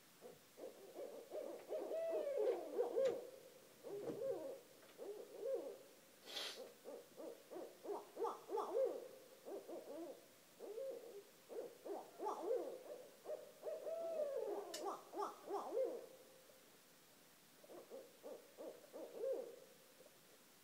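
Two barred owls calling together: fast runs of overlapping hoots, broken by a few long wails that rise and fall, in three bouts with short pauses between.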